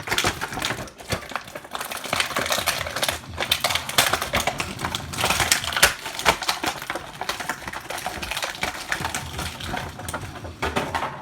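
Plastic packaging being worked by hand to free an action figure from its box: a dense, irregular run of clicks, crackles and rattles.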